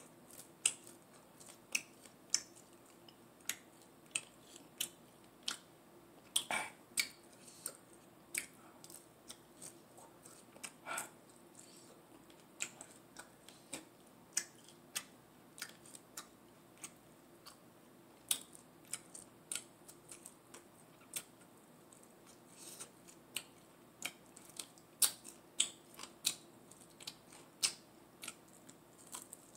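Close-miked chewing of sauced chicken wings: an irregular run of sharp wet mouth clicks and smacks, about one or two a second.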